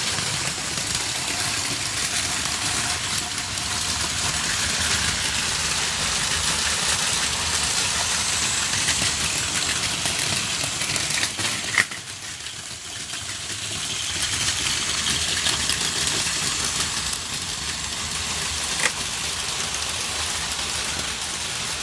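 Several battery-powered Plarail Advance toy trains running together on plastic track, a steady whirring and rattling of small motors and wheels. A sharp click comes just before the middle, after which the sound drops briefly and builds back up, with another click later.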